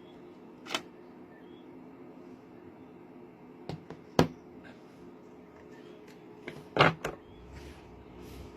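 A handful of sharp clicks and knocks from small hard objects being handled, the loudest about four seconds in and in a quick cluster near seven seconds, over a faint steady hum.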